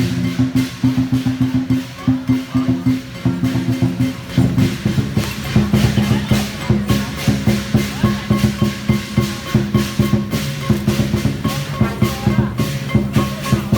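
Dragon dance percussion band playing: drums beaten in a fast, steady rhythm with crashing cymbals, over sustained low notes that shift in pitch partway through.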